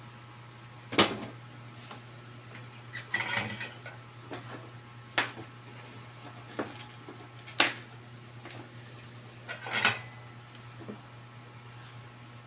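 Soldering iron being cleaned, its metal tip clinking and tapping: about seven sharp, irregular metallic knocks, the loudest about a second in, over a steady low hum.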